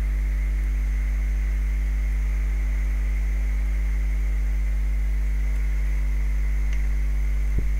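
Steady electrical mains hum with a faint hiss, the recording's own background noise, and a faint click near the end.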